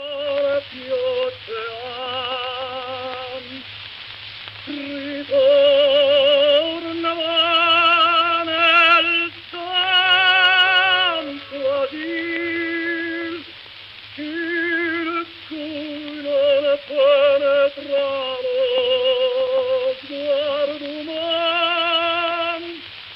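Solo operatic singing: one trained voice with strong vibrato holding long notes, phrase after phrase with short breaths between, over a faint steady low hum.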